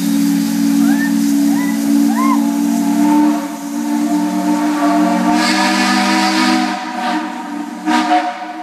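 Steam whistle of AD60 class Beyer-Garratt locomotive 6029 sounding one long, steady multi-note blast lasting about eight seconds, with steam hissing. Bursts of hiss come through around the middle and just before the whistle stops.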